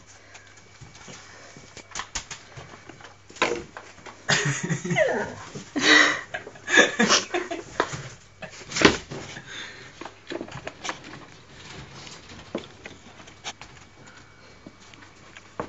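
Broom bristles scuffing and knocking across carpet amid small scampering scuffles, with a cluster of louder, voice-like bursts in the middle.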